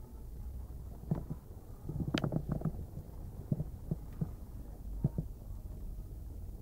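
Low steady rumble with scattered soft knocks and taps, busiest for about a second starting two seconds in, then a few single taps.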